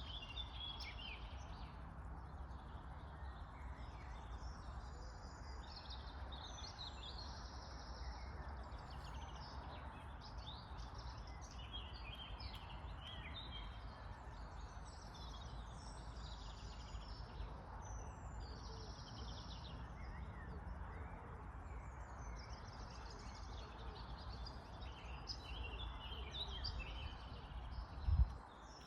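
Outdoor ambience of birds chirping and calling over a steady low rush of background noise, with one brief low thump near the end.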